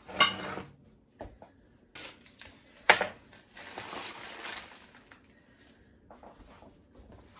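A package of raw chicken thighs being opened: sharp snaps just after the start and about three seconds in, then a second and a half of crinkling and tearing.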